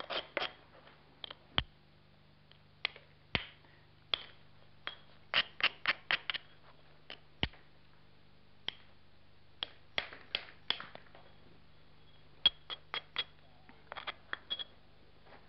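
Soft limestone hammerstone striking and tapping the edge of an obsidian biface: a long irregular series of sharp clicks, some in quick runs, a few with a brief high glassy ring.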